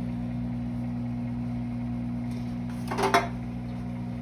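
Microwave oven running with a steady low hum while the marshmallows cook. About three seconds in, a short clatter of a kitchen utensil or dish.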